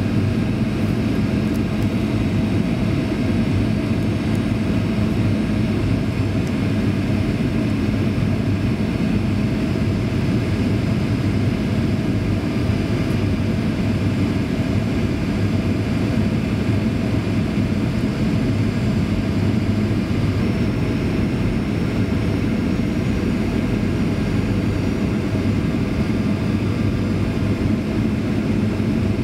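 Steady cabin noise inside a Boeing 737-800 on approach: the drone of its CFM56 turbofan engines mixed with airflow rushing past the fuselage, with a low, even hum and no marked change.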